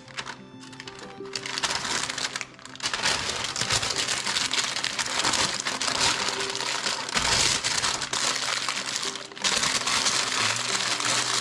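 Parchment paper crinkling and rustling as it is folded by hand around slices of ham, starting about a second and a half in and growing louder. Background music plays throughout.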